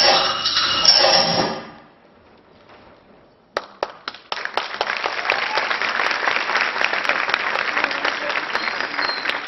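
A loud sound cuts off about two seconds in, and after a short hush an audience breaks into applause, many hands clapping steadily.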